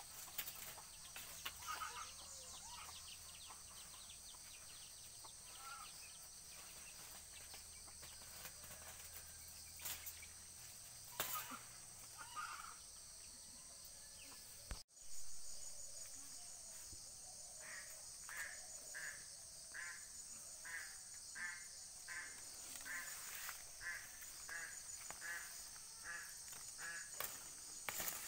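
Rural garden ambience: a steady high insect buzz, and in the second half a bird calling over and over, about twice a second.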